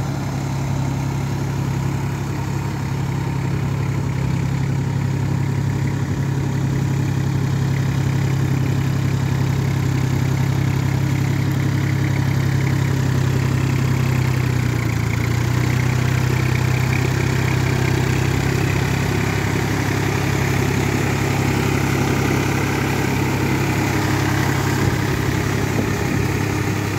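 New Holland 4710 tractor's diesel engine running steadily under load while it pulls a rotavator through a flooded paddy, puddling the mud. The engine note dips briefly about halfway, and a hiss of churned water and mud grows in the second half.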